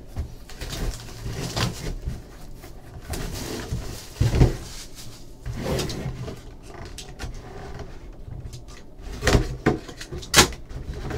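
A box being opened and its packaging handled: irregular scrapes and rustles with a few sharper knocks, the loudest a little after four seconds in and twice near the end.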